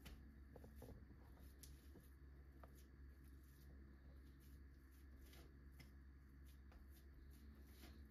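Faint crinkling of plastic cling film as hands press and shape a lump of minced meat on it, with scattered small crackles over a low steady hum.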